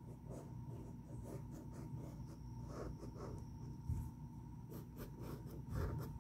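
A Sharpie pen scratching short, quick strokes on sketch-pad paper, faint, with a soft bump about four seconds in.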